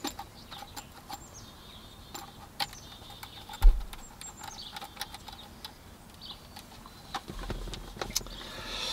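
Handling noises from a handheld OBD2 scan tool and its cable being readied and plugged in under the dash: scattered light clicks and plastic knocks, with one heavier thump about three and a half seconds in.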